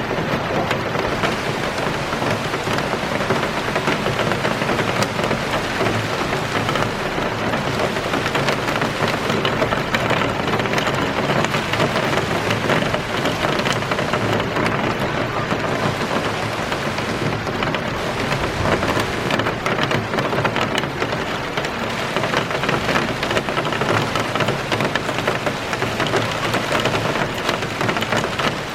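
Steady heavy rain shower, a dense even hiss of falling rain dotted with countless individual drops ticking.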